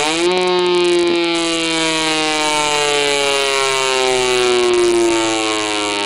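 Thunderbolt 1000A civil defense siren's chopper assembly running with its motor, the spinning chopper giving a loud siren-like wail with a hiss above it. The pitch jumps up right at the start, then sags slowly over the rest.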